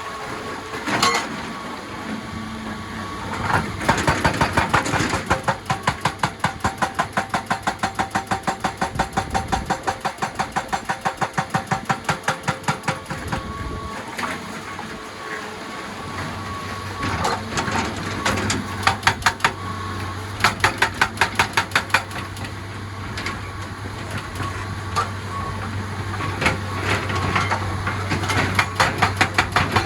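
Excavator-mounted hydraulic breaker hammering rock in long bursts of rapid blows, about five a second, over the steady running of the excavator's engine.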